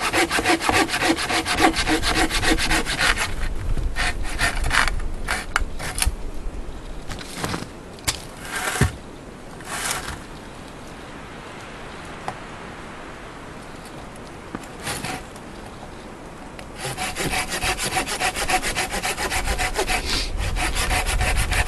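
Hand saw cutting through a dead log in quick, even back-and-forth strokes. After about three seconds the strokes thin out to a few scattered ones, stop for several seconds, and then fast sawing starts again near the end.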